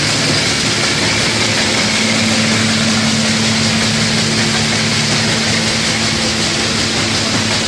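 Flour mill (atta chakki) grinder running steadily: a loud, even grinding and motor noise with a steady low hum that grows stronger about two seconds in.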